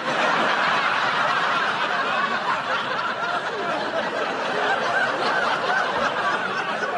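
A live audience laughing, breaking out all at once and easing off slightly near the end.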